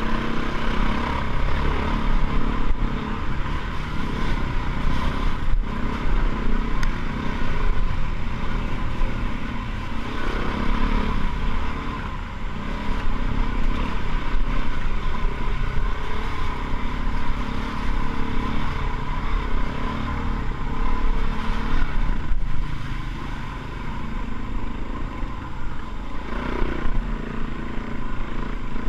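Motorcycle riding over a dirt track: the engine runs steadily under wind rush, with a few knocks and rattles from the rough ground.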